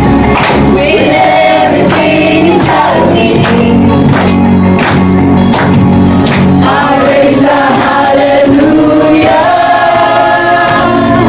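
A group of people singing a Christian worship song together over accompanying music with a steady beat.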